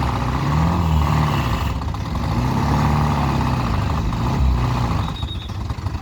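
Heavy truck diesel engine running, its pitch rising and falling in slow swells, then dropping away about five seconds in.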